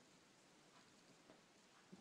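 Near silence: room tone with a few faint, soft ticks, the last near the end being the clearest.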